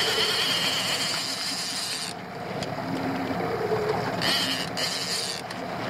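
Suzuki DF90A outboard motor running steadily under a high mechanical whirring of line-winding gear. The whirring comes in two stretches, one lasting about two seconds and a shorter one near the end, as a lake trout is brought up from about 90 feet.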